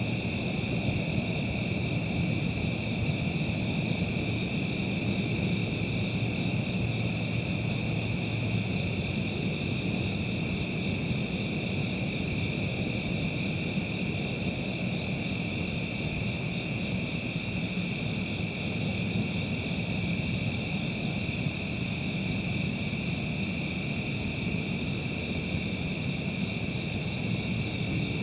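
Steady chorus of night insects, a constant high shrilling with a faint even pulse, over a low steady rumble.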